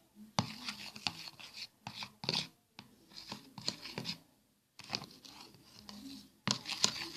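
Irregular small clicks and scrapes from handling a homemade slime mixture of detergent and talc and its container, with a brief pause partway through.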